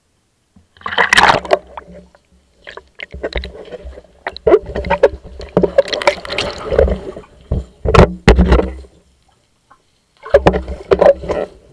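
Pool water splashing, sloshing and bubbling against a GoPro camera as it is dunked and moved underwater, with sharp knocks and bumps, in irregular bursts and short quiet gaps.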